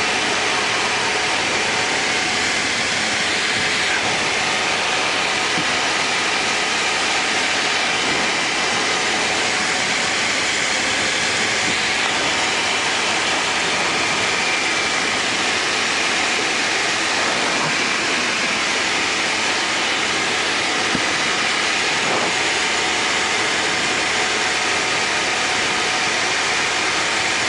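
Light single-engine aircraft's engine and propeller running steadily at cruise power, heard inside the cockpit as an even rushing drone with a faint steady hum.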